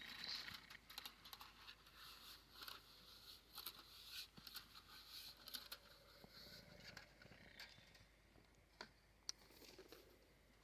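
Faint, scattered clicking and rustling, busiest over the first six seconds, with a single sharp click about nine seconds in.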